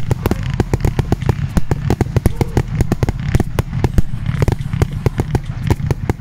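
Fireworks going off: a dense, irregular run of sharp cracks and bangs, several a second, over a low rumble.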